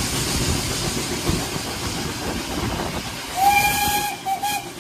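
A train running along the track, heard from a carriage window. About three and a half seconds in, the locomotive's whistle sounds a single-pitched blast of a bit over half a second, followed by a short second toot.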